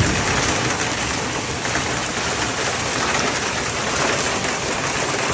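Heavy rain falling steadily, an even, dense hiss with no breaks.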